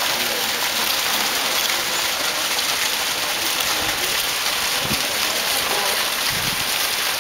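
Steady rushing of water from small waterfalls pouring into a rocky river pool.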